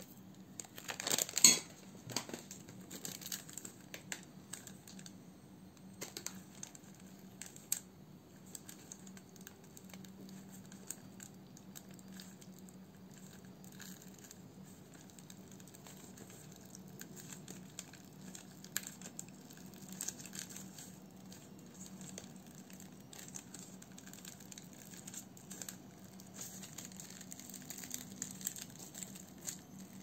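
Close handling sounds of dried herbs and lavender buds rustling and pattering onto a honeycomb wax sheet and the paper beneath it, with a louder crinkle about a second in. Later come soft rustles and occasional light ticks as the wax sheet is lifted and rolled.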